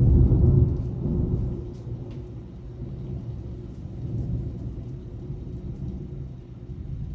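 Thunder rumbling after a nearby lightning strike: loudest in the first second, then a long low rolling rumble that slowly dies away, swelling again briefly about four seconds in.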